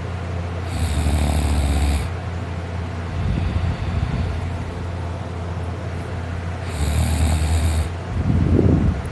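A person asleep on his back, snoring loudly: two long snores about six seconds apart, each lasting about a second, with softer breaths between.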